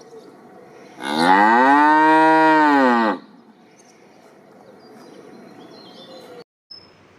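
Cow mooing: one long moo of about two seconds, rising and then falling in pitch, with faint background noise around it.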